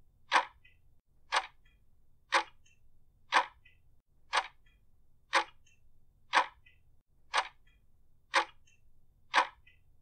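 Stopwatch ticking once a second in an even, sharp rhythm, each tick trailed by a fainter click: a countdown timer running.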